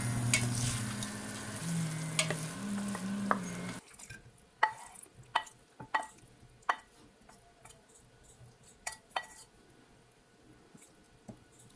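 Tofu cubes sizzling in a stainless steel pan as a spatula stirs them, over a low steady hum. About four seconds in the frying sound stops, and a string of sharp clicks and scrapes follows as the spatula and pan tip the food onto a glass plate.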